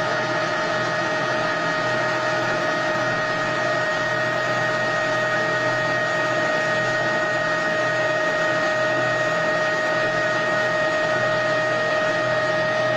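CNC machining centre running steadily during a threading operation: an even hiss with a constant high whine.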